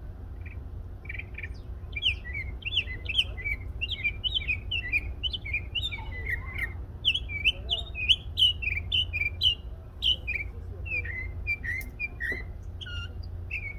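A small songbird singing a long, fast run of high chirping, warbling notes, several notes a second and hardly a break.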